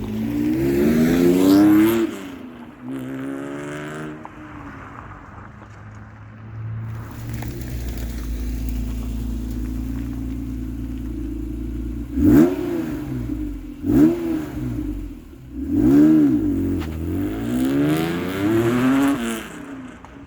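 Acura NSX V6 breathing through an aftermarket Comptech exhaust, revved up twice, settling to a steady idle, then blipped three times in sharp rises and falls and revved once more, longer, near the end.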